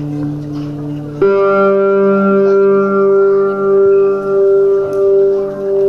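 Solo electric guitar played through an amplifier: a held chord, then a new chord struck about a second in that rings on, swelling and fading slowly.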